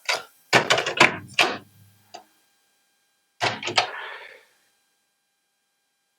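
Clicks and clunks of cassettes being handled and swapped in a cassette deck: a quick series of knocks, then a second short group a couple of seconds later.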